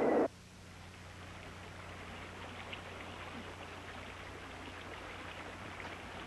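A loud special-effect sound with a falling whistling tone cuts off suddenly a fraction of a second in. After it, only a faint hiss with scattered crackles and a steady low hum from the old soundtrack remains.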